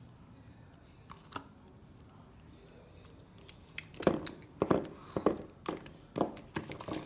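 Slime being squished by hand in a plastic bowl, a jelly slime pressed into other slimes: a few faint clicks, then from about four seconds in a quick run of wet clicks and pops.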